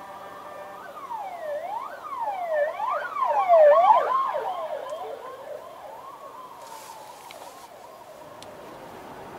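Emergency vehicle siren heard from inside a car: a short steady tone, then quick rising-and-falling yelp sweeps from about a second in, loudest near the middle, slowing into one long falling wail that fades away.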